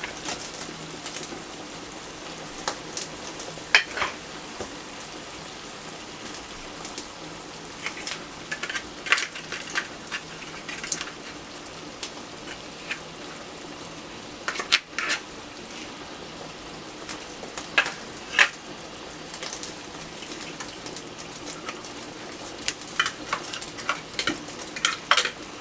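Tomato-and-onion gravy sizzling steadily in a frying pan, broken by scattered short clinks and knocks of metal as oil-packed canned sardines are worked out of their cans into the pan.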